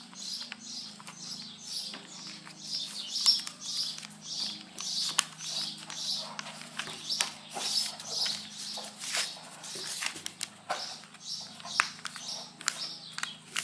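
A sheet of paper being folded and creased by hand into a paper airplane: repeated rustling swishes with sharp crinkles and taps.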